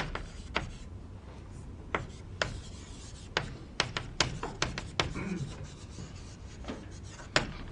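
Writing on a board: faint scratchy strokes broken by irregular sharp taps.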